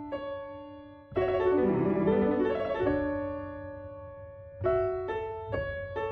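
Solo piano music played slowly: a held note fading away, a fuller chord struck about a second in, then a few more notes struck near the end.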